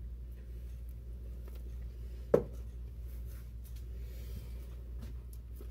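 Faint rubbing and squishing of a plastic piping bag being squeezed over a steady low room hum, with one sharp click a little over two seconds in.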